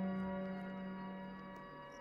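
Background music: a sustained ambient drone of many held, ringing tones, slowly fading out.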